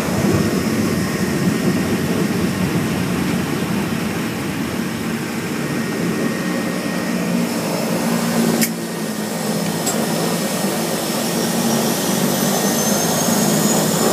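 Seaplane's propeller engine running steadily, heard from inside the cabin, with a brief knock about eight and a half seconds in and a high whine rising in pitch near the end.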